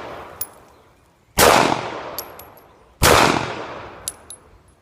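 Glock 19 9mm pistol fired twice, slow, paced shots about a second and a half apart, each report dying away over about a second. Light metallic clinks from the ejected brass fall between the shots.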